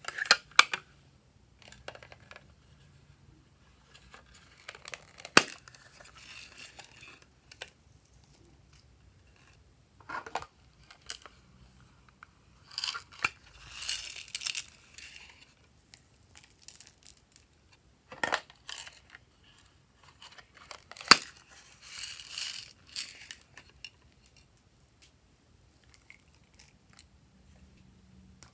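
A small plastic toy case being handled and opened by hand: a few sharp plastic clicks and snaps, with short bursts of rustling and rattling as sequins and confetti are shaken out of it.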